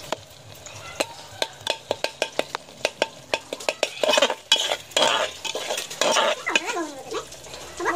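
A spoon stirring and scraping thick frying masala in an aluminium pressure-cooker pot, with the masala sizzling. Sharp clicks of the spoon against the pot come first, then denser scraping from about halfway through.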